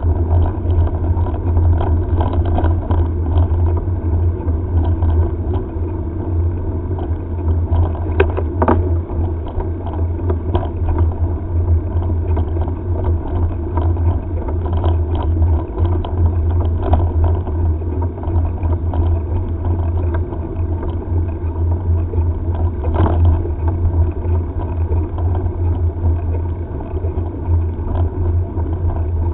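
Steady wind rumble on a head-mounted camera's microphone while riding a mountain bike on asphalt, mixed with tyre and bike noise and a few sharp clicks.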